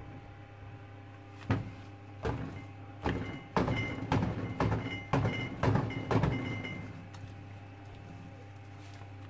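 A run of about ten knocks over a few seconds with a faint metallic ring, as a filled silicone soap mold is knocked against a stainless steel counter to settle hot process soap. A steady low hum runs underneath.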